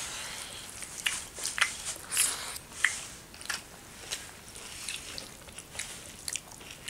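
Eating sounds: fingers mixing rice with chicken gizzard curry on metal plates, along with chewing, heard as an irregular scatter of small wet clicks, squelches and crunches.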